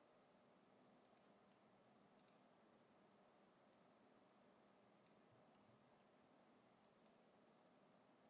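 Near silence broken by about ten faint, scattered clicks of a computer mouse and keyboard, some in quick pairs.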